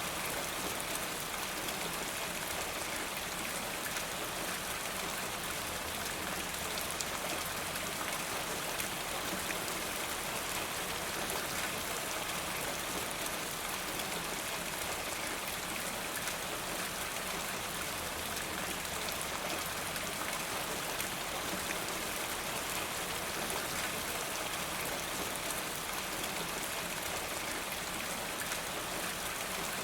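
Steady rain falling onto a rain gutter, an even, unbroken hiss of drops.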